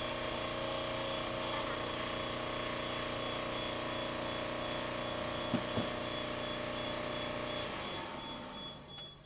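A steady mechanical hum, like a workshop machine or engine running nearby, with two light clicks of parts being handled about five and a half seconds in; the hum fades away near the end.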